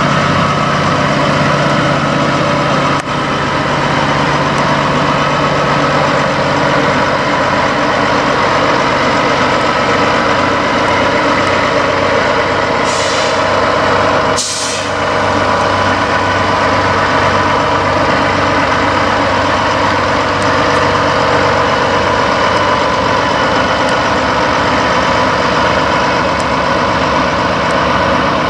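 Peterbilt semi truck's diesel engine idling steadily. A short hiss of air comes about halfway through.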